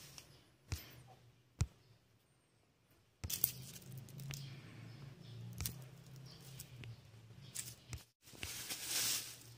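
Handling noises as food items are picked up from a shelf: a few sharp clicks and knocks, then rustling of plastic and foam packaging, loudest near the end, over a low hum in the middle.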